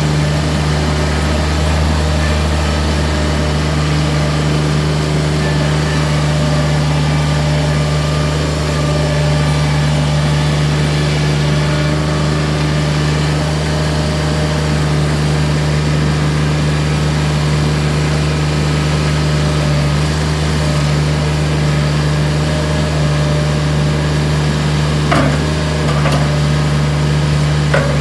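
Toro Dingo TX 525 mini skid steer's engine running at a steady idle, with a couple of light clicks near the end.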